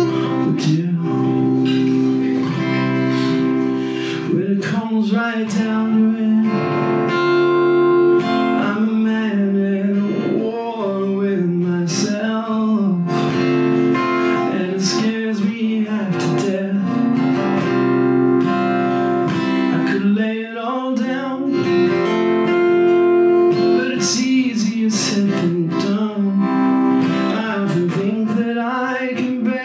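Acoustic guitar strummed steadily under a man singing a song.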